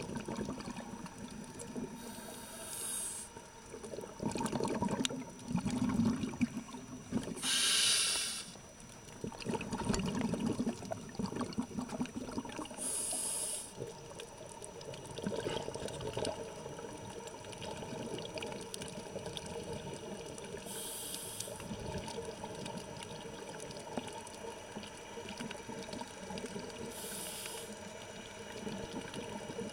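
Scuba diver breathing through a regulator underwater: a hiss of about a second on each breath in, five times, the second the loudest, with low rumbling exhaled bubbles between them.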